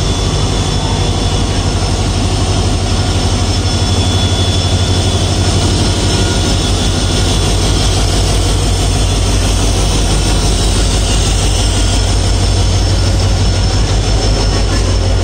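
WDG4 diesel-electric locomotive's 16-cylinder two-stroke EMD engine running loud and steady under power as the locomotive pulls away and passes close by.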